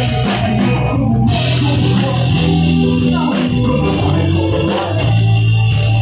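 Live rock band playing loudly: electric guitar, bass guitar and drums with sustained low notes, heard through the room of a small club.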